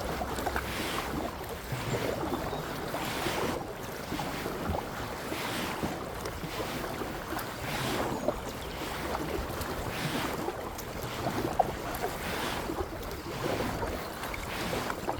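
Kayak paddle strokes in water, rising and falling every second or two, with wind buffeting the microphone.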